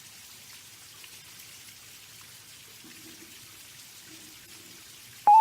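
Faint, steady patter of water drops falling into a pond. Just before the end a loud steady tone cuts in suddenly.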